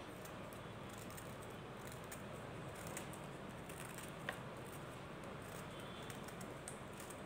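Scissor blades scraping and snipping into a solid mothball cake, giving faint scratchy crunching with small clicks. One sharper click about four seconds in.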